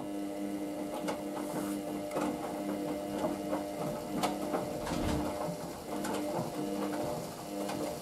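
Hoover VisionDynamic front-loading washing machine tumbling wet laundry in the rinse: the drum motor runs with a steady hum while clothes and water slosh and drop inside the drum. The hum breaks briefly around the middle, then resumes.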